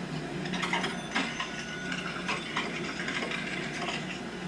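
Rustling and knocking of a home camcorder being handled and moved, with a scatter of clicks through the middle, over a steady low hum.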